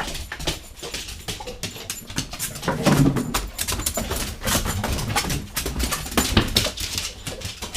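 A dog whining, among many short clicks and knocks.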